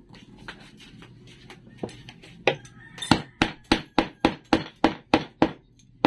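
Hammer striking wooden dowel legs fitted into a plywood base. A few light taps come first, then from about halfway a steady run of sharp strikes, about three a second.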